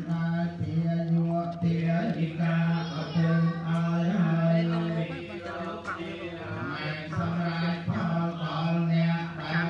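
Buddhist prayer chanting: voices reciting on a steady, low monotone, pausing only briefly for breath.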